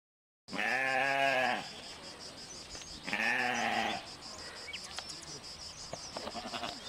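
Sheep bleating twice: two calls of about a second each, about two seconds apart, each rising and then falling in pitch.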